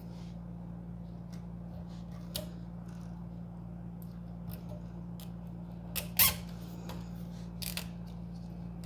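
Small handling sounds of zip ties and a textile cable sleeve being fastened: a few light clicks and, about six seconds in, a short squeak, over a steady low hum.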